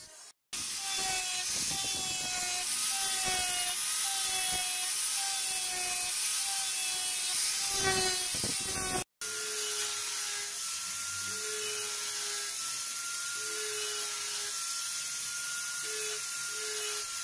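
Electric angle grinder running with its disc cutting into a wooden pool-table rail: a steady high whine with a tone that wavers as the disc bites into the wood. It cuts off briefly a little past the middle, then carries on steadier.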